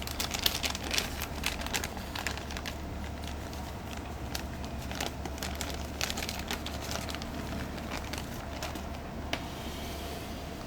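Plastic packaging crinkling and crackling as a die-cast toy vehicle is unpacked from its box, in irregular bursts of crackles and clicks, busiest in the first few seconds and again around the middle.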